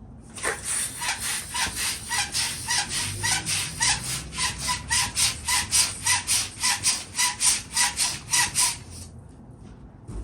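Balloon being inflated with a hand pump: a quick, even run of air-pump strokes, about three a second, each with a slight rubbery squeak, that stops about a second before the end.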